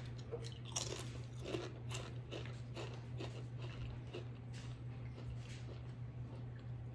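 A Pringles potato crisp being bitten and chewed: a run of crisp crunches, loudest and closest together in the first two seconds, then fainter chewing.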